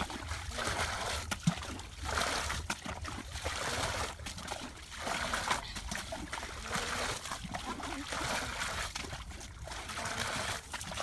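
Shallow muddy water splashing and sloshing in irregular surges as children wade and sweep it with their hands.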